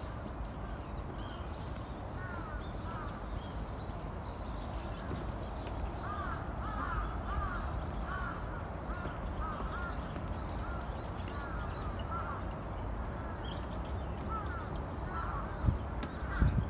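Birds calling over and over, many short rising-and-falling calls in quick succession, over a steady low rumble. A short, loud low rumble comes near the end.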